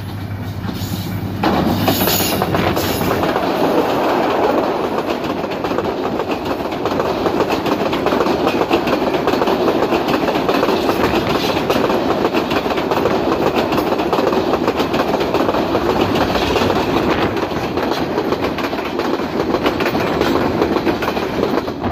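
Bangladesh Railway passenger express passing close by: the diesel locomotive's low engine hum as it approaches, then a sudden loud rush about a second and a half in as it goes by, followed by the coaches rolling past with steady clattering of wheels on the rails.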